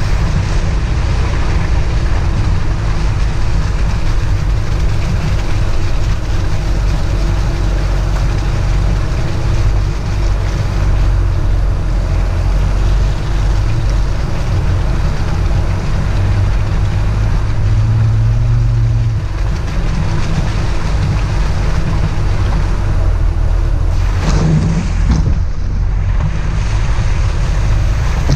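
Vehicle engine running steadily while driving, with wind buffeting the microphone; the engine note shifts briefly a couple of times.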